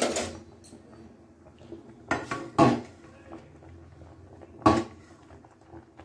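Steel spatula and aluminium rice pot clanking as boiling rice is checked for doneness: four sharp clanks, one at the start, two close together about two seconds in, and one near five seconds.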